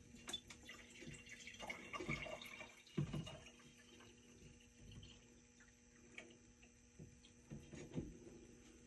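Water being poured into a glass mason jar, faint, with a few light knocks of the glass along the way.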